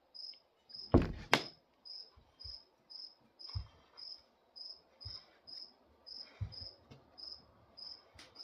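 A cricket chirping steadily, about two short high chirps a second, with two loud knocks about a second in.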